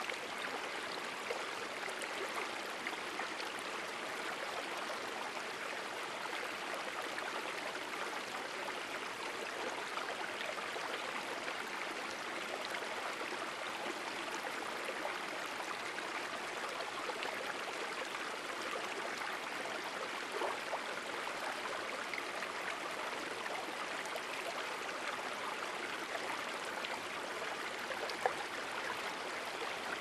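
The Gallatin River running shallow over a rocky bed: a steady rush of flowing water with small gurgles and the odd slightly louder splash.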